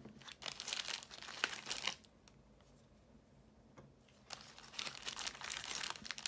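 Plastic packaging bag crinkling as cast metal miniatures are handled and taken out of it. It goes quiet for about two seconds in the middle, then starts again.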